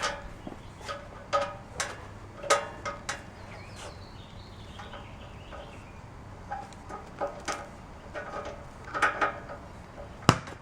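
Irregular light metallic clinks and taps from hand-assembling a barbecue grill: bolts, screws and a hand tool knocking against the grill's metal parts while the fasteners are tightened. One sharper knock comes near the end.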